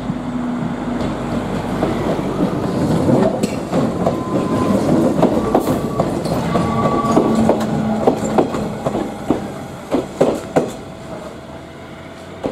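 Echizen Railway MC7000-series electric train passing close by: a rising then fading rumble of wheels on rail, with a few short faint wheel squeals. In the second half there are spaced sharp clacks as the wheels cross rail joints.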